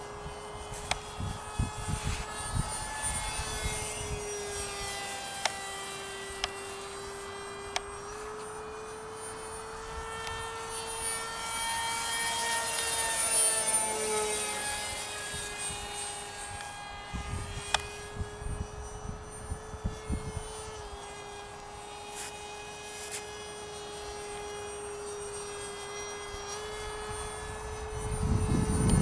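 Electric motor and propeller of an RC parkjet model of a Boeing ALCM cruise missile in flight, giving a steady whine whose pitch shifts slightly a few times. It grows loudest about halfway through as the model passes closest. Low rumbles of wind on the microphone come and go, strongest at the end.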